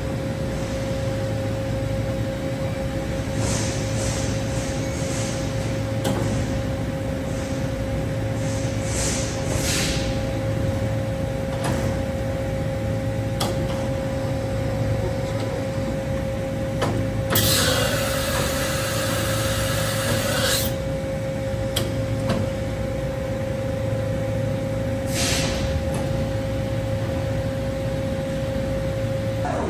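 Steady machine hum with a constant high whine from a powered-up CNC gantry machining center in a shop, broken by short bursts of air hiss and one longer hiss of about three seconds a little past the middle.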